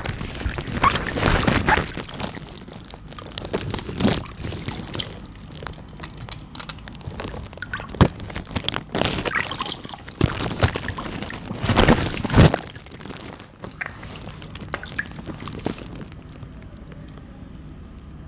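Water balloons bursting: sharp pops, the clearest about eight seconds in and just past twelve seconds, amid splashing and pouring water.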